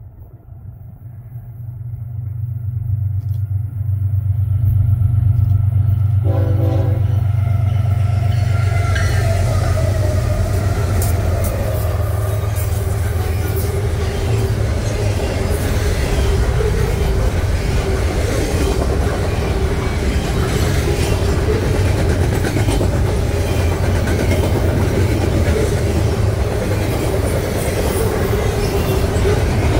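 An intermodal freight train led by GE ES44 diesel locomotives approaches at speed, its engine rumble swelling over the first few seconds, with a short horn blast about six seconds in. The double-stack container cars then stream past with a steady wheel-on-rail roar and a run of clicks over the rail joints.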